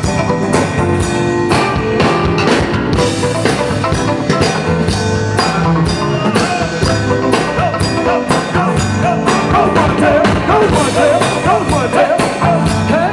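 Live band music with drums keeping a steady beat; a singer's voice comes in near the end.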